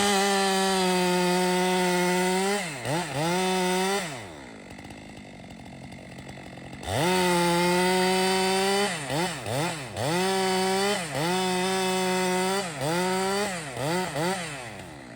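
Stihl MS462 C two-stroke chainsaw held at full throttle, let off briefly, then dropping to idle for about three seconds. It is revved up again and blipped up and down several times in quick succession near the end.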